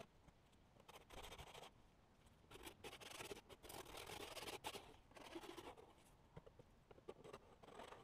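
Faint scratching of a small hand file drawn along the cut edge of a Lexan polycarbonate window, in uneven runs of strokes with short pauses between, the longest run in the middle.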